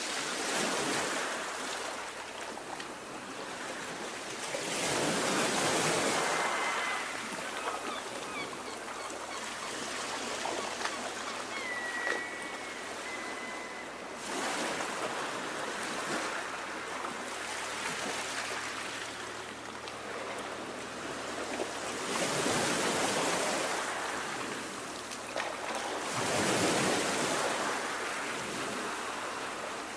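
Choppy sea waves washing and splashing, the noise swelling in surges every few seconds.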